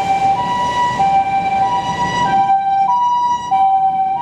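Japanese ambulance siren sounding its two-tone hi-lo 'pee-poh', alternating steadily between a higher and a lower note, over a low rumble of wind.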